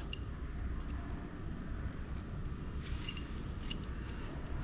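A few faint clicks of steel plate-bending irons working a small reconstruction plate by hand, most of them about three seconds in, over a steady low hum.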